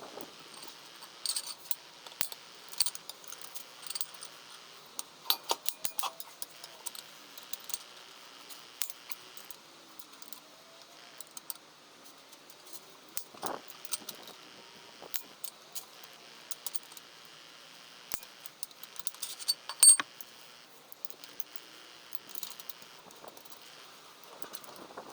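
Small metal tools and parts clinking and tapping irregularly, with one louder clink about twenty seconds in.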